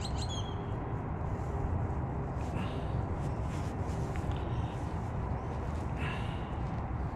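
Steady low rumble of outdoor wind on the microphone, with a few faint high chirps right at the start.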